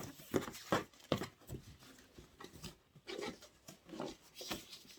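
Gift packaging being handled and unwrapped by hand: irregular rustles, rubs and light knocks as a boxed blanket is opened.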